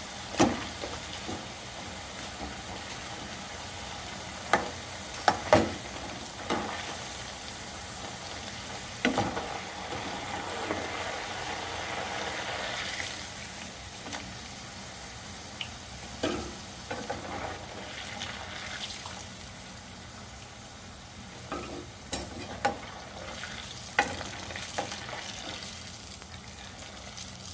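Flour-coated potato fries sizzling in hot oil, a steady frying hiss. Sharp knocks of a cooking utensil against the pan come every few seconds, the loudest cluster about five seconds in.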